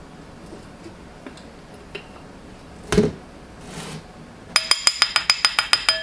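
A measuring tablespoon tapped rapidly against the rim of a ceramic bowl, about a dozen ringing clinks in a second and a half near the end, shaking oat flour off the spoon. A single knock comes about three seconds in.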